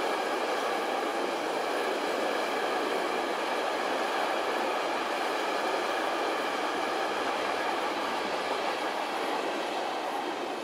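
A train running past on the rails, with a steady rolling wheel-and-rail noise that eases off slightly near the end.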